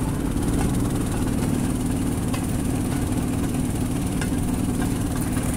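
Engine of a small open motor rail vehicle running steadily as it rolls slowly along narrow-gauge track, with a few light clicks.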